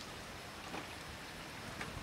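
Faint, steady outdoor background hiss, with two small clicks about a second apart.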